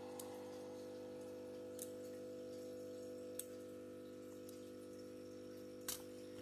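Four light, sharp clicks of small parts being handled, the last one the loudest, over a faint steady hum.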